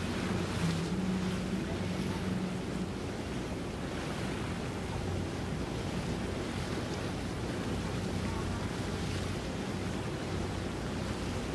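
Wind buffeting the microphone over choppy water, with the low steady hum of an idling boat engine; the hum's upper tone drops away about three seconds in.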